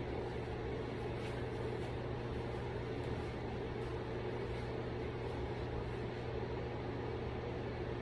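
A steady low hum of background noise with no distinct sounds standing out.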